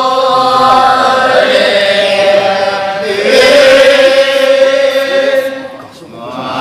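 Kecak chorus of men's voices chanting together on a held, droning pitch. It swells louder about three seconds in and fades briefly near the end.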